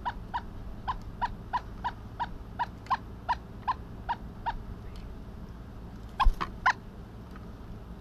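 Pileated woodpecker calling: a steady run of short, evenly spaced notes, about three a second, that stops about four and a half seconds in. About six seconds in come a few louder, sharper notes with a low thump.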